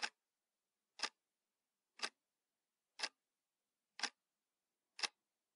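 Sharp, short ticks exactly one second apart, like a clock ticking, with silence between them; about six fall in the stretch.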